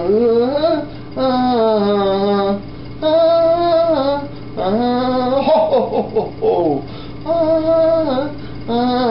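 A voice singing a slow melody in long held notes, each phrase a second or so long with short pauses between, the pitch gliding into some notes.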